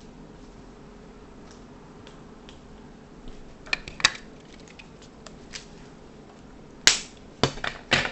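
Sharp clicks and knocks: a few close together about halfway through, then a louder group of about four near the end.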